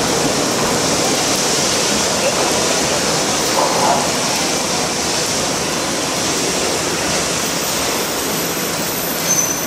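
Steady hiss of rain while Hiroden 650-type streetcar No. 653 creeps slowly into the platform; the rain covers most of the tram's own running sound.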